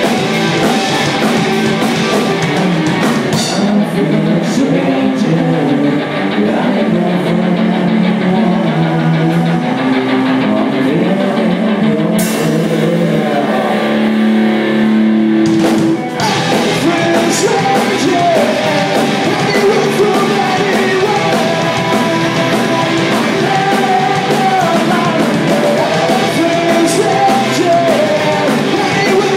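Rock band playing live: electric guitars, drum kit and sung vocals. The sound thins out for several seconds, then the full band comes back in about halfway through.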